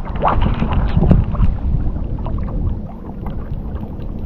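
Wind rumbling on the microphone on an open boat, with a few short knocks and splashy handling sounds.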